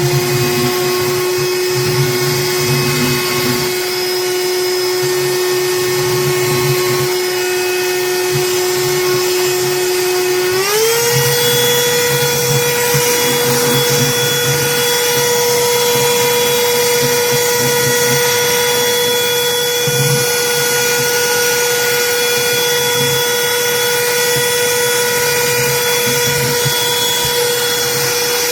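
Cordless handheld vacuum motor running with a loud, steady whine. About ten seconds in, its pitch rises quickly to a higher steady whine as the motor speeds up.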